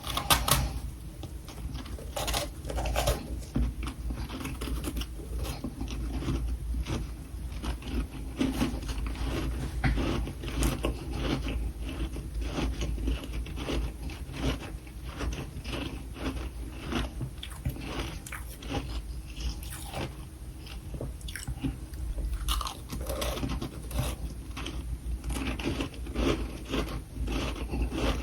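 A person biting and chewing something crunchy, with a steady, irregular run of crunches.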